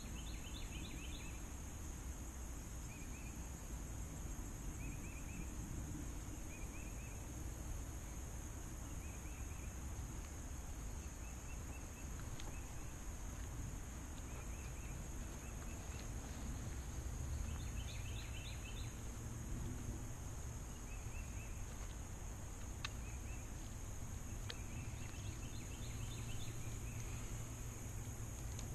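Outdoor pond-side ambience: a bird calls in short chirping phrases every second or two over a steady high hiss and a low wind rumble. Two sharp clicks come about two-thirds of the way through.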